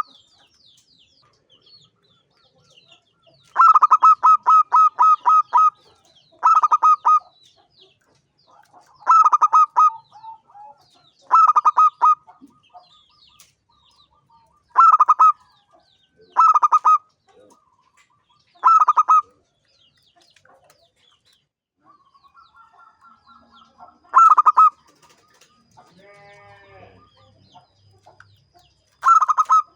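Zebra dove (perkutut) singing: repeated phrases of quick staccato coos, about nine of them with short pauses between, the one a few seconds in longer than the rest. A softer, different wavering call comes between phrases near the end.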